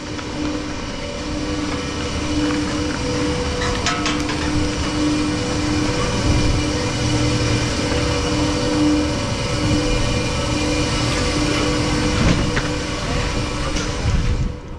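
Chairlift station machinery running: a steady mechanical hum with a pulsing tone over a rumble and a few clanks, as chairs pass through the bottom terminal. The noise drops away sharply near the end.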